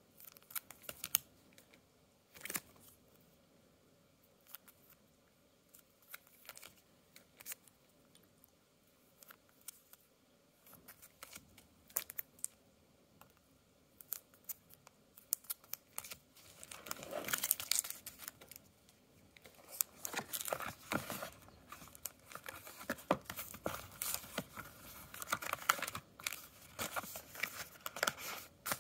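Photocards in clear plastic sleeves being handled: scattered light clicks and taps of plastic, then denser crinkling and rustling of plastic sleeves and paper from about halfway on.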